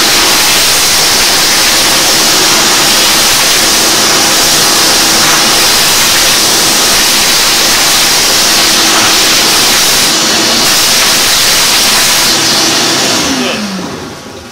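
Shop vac running steadily, vacuuming excess whiting powder off a puttied leaded-glass window; the motor winds down near the end.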